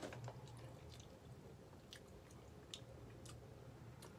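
Faint chewing and mouth clicks of a person eating pizza, a few soft clicks scattered through.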